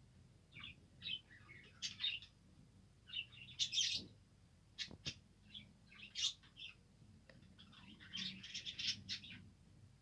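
A flock of budgerigars chirping and chattering in short, scattered bursts, busiest near the end. A couple of sharp clicks sound near the middle.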